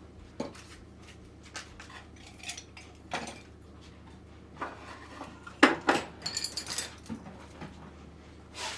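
Metal tools and parts being handled and set down on a workbench or tool cart: a series of clinks and knocks. The loudest comes about five and a half seconds in and is followed by a brief high ring.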